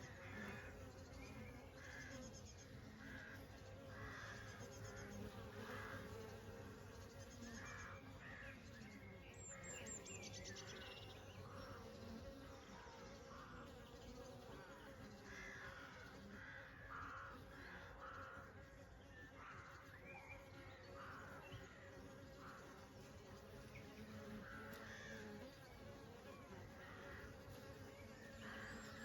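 Honey bees buzzing, a steady low hum of many wings. Short calls at about one or two a second come through over the hum.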